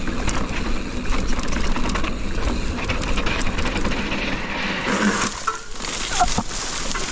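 Mountain bike descending a steep, rocky trail: the bike rattles and the tyres crunch over rock with many small knocks. About five seconds in, a louder hissing scrape of tyres on loose dirt sets in, with a few short squeaks.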